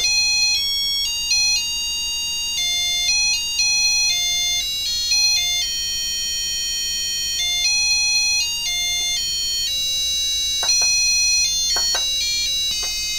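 HA5083 laser harp kit's on-board buzzer playing a tune of electronic beeping notes in its automatic play mode, with quick notes mixed with a few longer held ones.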